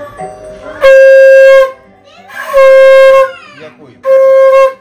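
A conch shell (shankha) blown three times during a Hindu puja, each a loud, steady horn-like note lasting under a second, the second one breaking into a falling wobble at its end.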